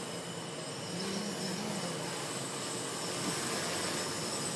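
Hexacopter's electric motors and propellers buzzing with a steady high whine, getting a little louder as it comes closer.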